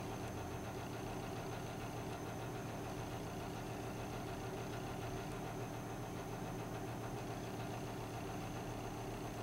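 Steady low mechanical hum with several fixed pitches and a faint thin high tone above it, unchanging in level.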